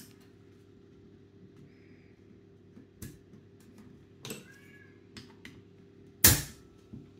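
Tools and small airsoft parts handled on a worktable: a light click about three seconds in, a short high-pitched squeaky call a little after four seconds, and a loud knock a little after six seconds as something is set down.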